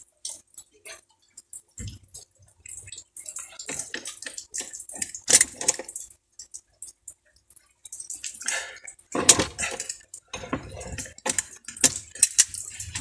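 Irregular metallic clicks, clinks and scrapes as locking pliers work a stiff retaining snap ring onto the steel armature shaft of a forklift starter motor, above the bendix drive. A few sharper clinks stand out near the middle and toward the end.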